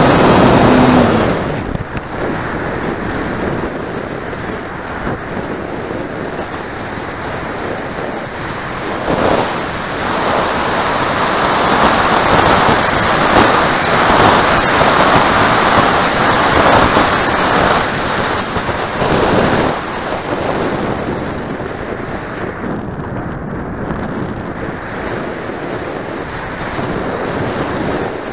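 Wind rushing over the onboard camera of a radio-controlled motor glider in flight. The propeller motor runs briefly at the start and cuts off about a second and a half in. Steady airflow noise follows, growing louder in the middle as the glider dives.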